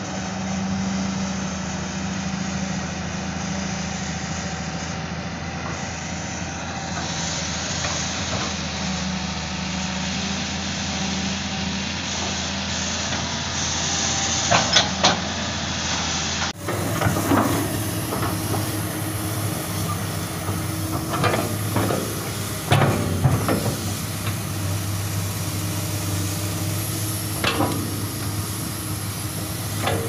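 Hydraulic excavator diesel engines running under working load. First a Hitachi Zaxis runs steadily with a couple of sharp metal clanks. After a cut, a second excavator digs with frequent clanks and knocks from the bucket and linkage.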